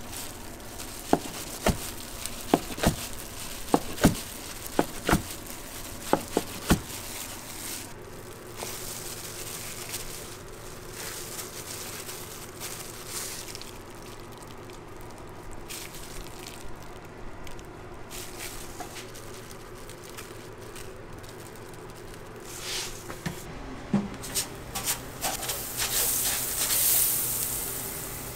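A chef's knife slicing through kimbap rolls onto a cutting board, a sharp tap with each cut, about two a second, for the first several seconds. Near the end, a few taps and a rising sizzle as liquid hits a hot flat-top griddle.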